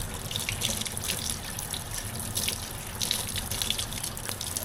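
Water running from a sink tap and splashing unevenly as bleach is rinsed out of a lace wig.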